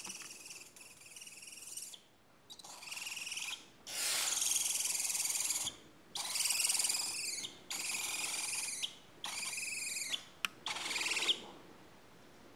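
Four-week-old barn owl chicks giving long, rasping, hissing screeches, about seven calls of a second or two each with short breaks between.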